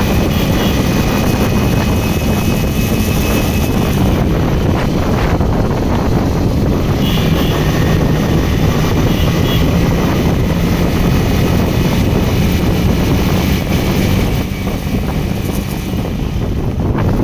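Yamaha MT-15's single-cylinder engine running at a steady cruising pitch, under heavy rushing wind and road noise on the microphone. It eases off slightly near the end.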